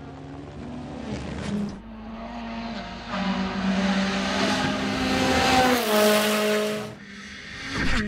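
World Rally Championship Rally1 cars' turbocharged four-cylinder engines driven hard on gravel stages, the pitch climbing and stepping at a gear change, loudest about six seconds in. The sound drops off suddenly near seven seconds, then swells again as another car arrives.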